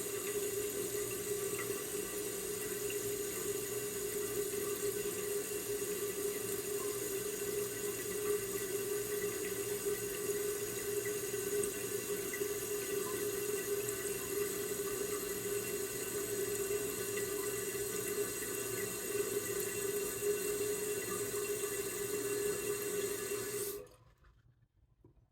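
Toilet cistern refilling: water runs steadily through the fill valve with a hissing rush and a steady hum, then shuts off abruptly near the end as the valve closes.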